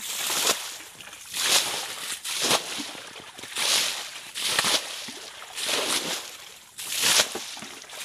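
Water being bailed out of a shallow muddy pond with a plastic basin and a small bucket: repeated scoops and splashing throws of water, about one a second.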